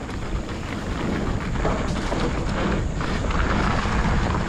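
Wind buffeting a helmet-mounted camera's microphone over a heavy low rumble, with scattered knocks and rattles: a mountain bike rolling over a dirt trail.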